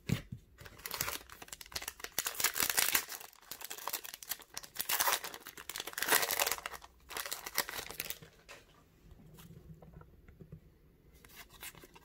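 Foil wrapper of a hockey trading-card pack crinkling and tearing as it is ripped open, in several loud spells. It then gives way to quieter rustling and small clicks as the cards are handled.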